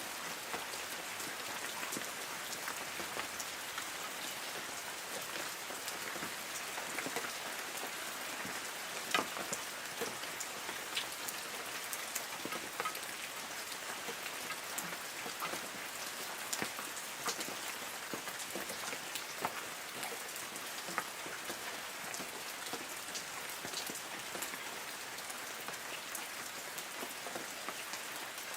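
Light rain falling steadily on forest trees: a constant hiss of rainfall with many separate drops pattering on leaves.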